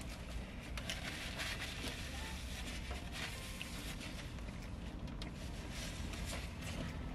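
Paper sandwich wrappers crinkling and the small sounds of eating fried chicken sandwiches, over a steady low hum inside a car.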